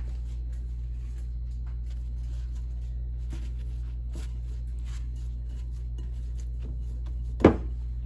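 Steady low hum with faint scattered clicks, and one sharp knock about seven and a half seconds in.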